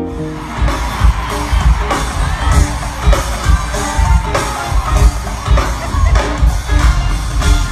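Loud live music with a heavy pulsing bass beat and crowd noise, as heard from within the audience.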